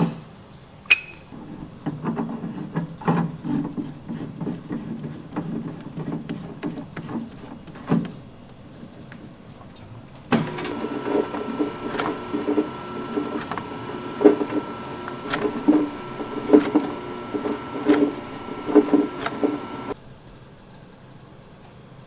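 Knocks and clatter of metal parts being handled. About ten seconds in, an electric pasta-making machine starts and runs steadily with a fixed whine and repeated knocks, then stops abruptly about two seconds before the end.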